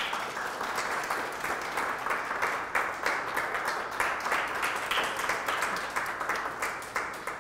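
Audience applauding: dense, steady clapping from many hands, thinning out near the end.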